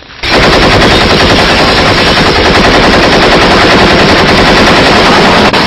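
Rapid automatic gunfire: a continuous machine-gun burst that starts about a quarter second in, runs without a break and cuts off near the end.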